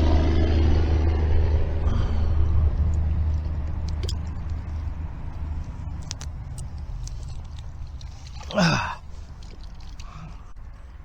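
A motor vehicle's low engine rumble, loudest at first and fading away. About eight and a half seconds in comes one short sweep falling steeply in pitch.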